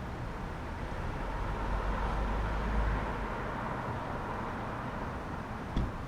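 Calm city street ambience: a vehicle passes with a low rumble, swelling about a second in and fading after three seconds, over steady distant traffic noise. A single short knock sounds near the end.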